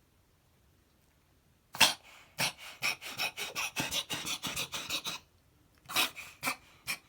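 A cat reverse sneezing: a sharp burst about two seconds in, then a fast run of short, forceful nasal breaths, about five a second, for some three seconds, and three more near the end. The spasm has been diagnosed as reverse sneezing; it was first taken for a cat coughing up a hairball.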